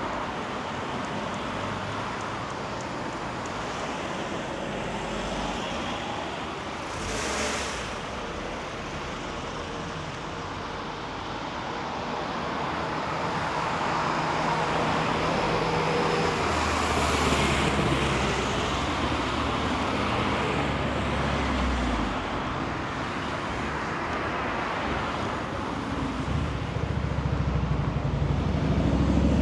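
Street traffic: cars passing in a steady wash of road noise. A vehicle's low engine hum comes through from about halfway, and another vehicle grows louder near the end.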